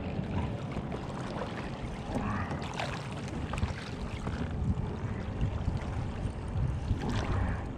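Bay water lapping and sloshing against a kayak hull, a steady, choppy wash with a few brief sharp sounds.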